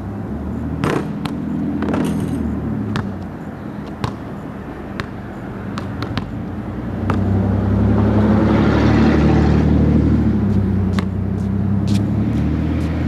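A motor vehicle's engine running nearby, growing louder from about seven seconds in as it passes and then easing off. A basketball bounces on concrete now and then over the top.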